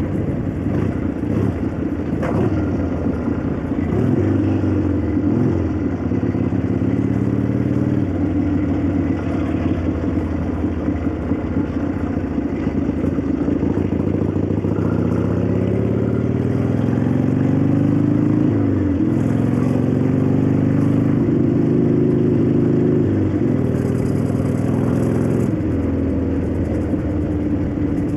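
1965 Harley-Davidson XLCH Sportster's Ironhead V-twin running on the road, its pitch climbing as it pulls and dropping back at each gear change, several times over. The valvetrain clacks over the exhaust.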